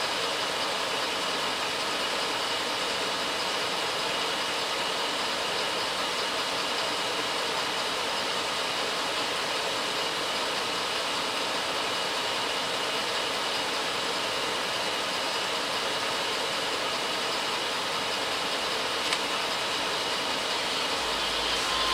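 Pickup cab's HVAC blower running steadily: an even rush of air with no rise or fall.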